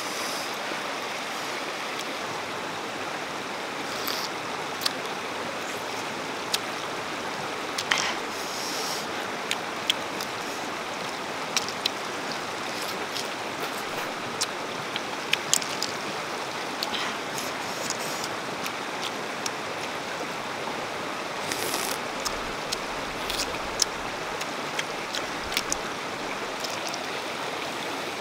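A river stream running steadily over rocks, with scattered sharp clicks from cooked river shellfish shells being handled and eaten by hand.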